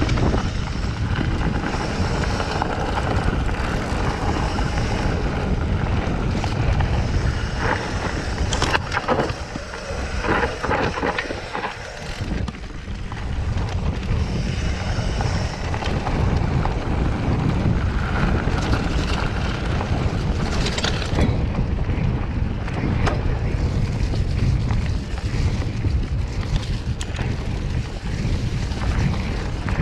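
Wind buffeting the microphone of a mountain bike's action camera, with tyres rolling over dirt and dry leaves on a fast downhill trail. Rattles and knocks from the bike over rough ground come thickest about eight to twelve seconds in and again around twenty-one seconds.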